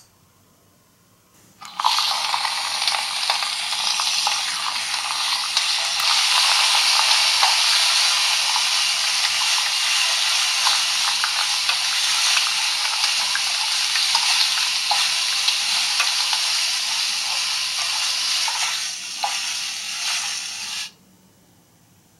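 Five miniature frying-pan toys playing their recorded frying sizzle all at once through tiny built-in speakers: a crackling sizzle, thin with no low end, that starts about two seconds in and cuts off suddenly near the end.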